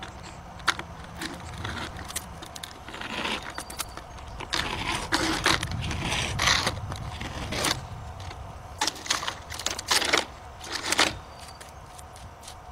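Utility-knife blade drawn along a length of vinyl siding corner molding, scraping and crackling as it slits the plastic, in several strokes through the middle, with scattered clicks of the vinyl being handled.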